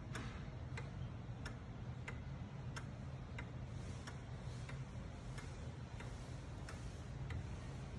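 Ansonia Queen Elizabeth pendulum wall clock (1882 patent) ticking steadily as its pendulum swings, about three ticks every two seconds, over a low steady hum.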